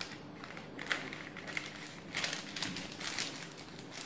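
Soft crinkling and rustling of a small piping cone being handled and filled with decorating gel: a run of faint crackles that gets busier about two seconds in.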